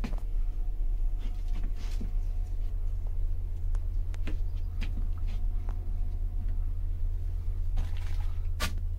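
A steady low rumble from the sleeper bus's engine, heard inside the cabin, with scattered light clicks and knocks throughout.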